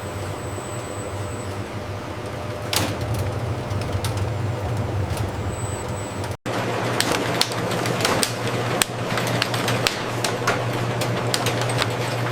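Steady hum of factory production-line machinery, with a single sharp click about three seconds in. After a brief break in the sound past the middle, quick irregular clicking and clatter runs over the hum.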